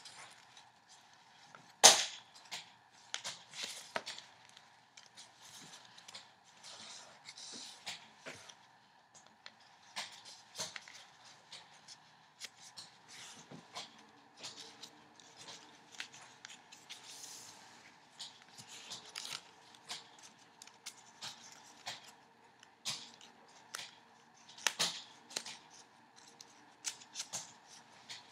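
White paper origami units being folded, creased and slotted together by hand: scattered rustles, crinkles and sharp little snaps and taps, the loudest a sharp snap about two seconds in. A faint steady hum lies under it.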